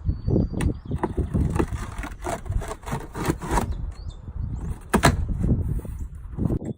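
Cardboard boxes being handled and opened: scraping, rustling and a run of knocks and bumps, with a louder knock about five seconds in.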